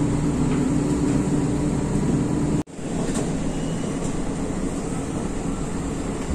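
Diesel train running, heard from inside the carriage: a steady engine drone over wheel and track rumble. About two and a half seconds in, the sound drops out abruptly for an instant, then the running noise carries on slightly quieter.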